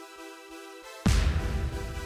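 Soft background music, then about a second in a sudden loud rush of wind buffeting the microphone, heaviest in the low rumble, cuts in under the music.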